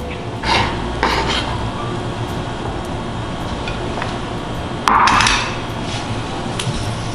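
Kitchen knife and glass baking dish handled on a bamboo cutting board: two short scrapes about half a second and a second in as cut fig pieces are pushed along, then a louder scrape about five seconds in as the glass dish is set down. A steady low hum runs underneath.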